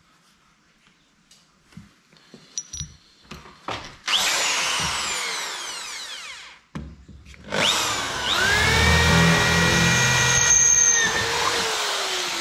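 Power drill boring into the aluminium gunwale of a boat: a few light clicks, then a short run about four seconds in with the motor whine sagging in pitch as the bit bites. A longer run starts about seven and a half seconds in, spinning up to a steady high whine over a low grinding rumble.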